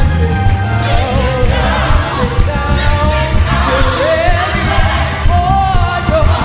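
Live gospel music: a singer's wavering, gliding vocal line over a band with a heavy, steady bass.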